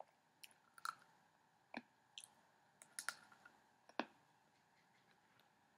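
Faint, irregular crunches and clicks of someone chewing hard pretzels with her mouth closed, about a dozen in the first four seconds, in otherwise near silence.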